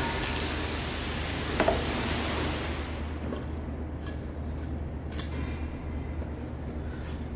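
Tool and lumber handling: a sharp click about one and a half seconds in as a spade bit is fitted into a cordless drill's chuck, then a few light knocks as the drill is set down and the stacked pine boards are shifted. A steady low hum runs underneath.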